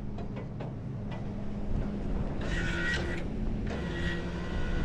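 Truck engine idling with a steady low rumble, a few light clicks in the first second and a brief higher-pitched sound with a steady tone about two and a half seconds in.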